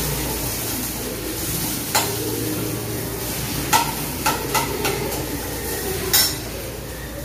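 Onions frying in oil in a stainless steel pan, stirred with a steel spatula: a steady sizzle with about five sharp clinks of the spatula striking the pan.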